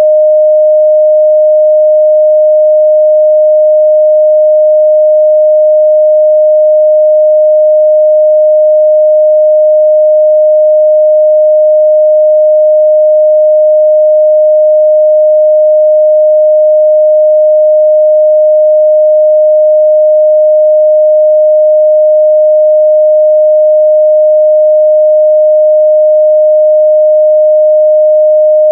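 A steady, loud 614 Hz pure sine-wave test tone, one unchanging pitch in the midrange, used for checking the frequency response of speakers and headphones.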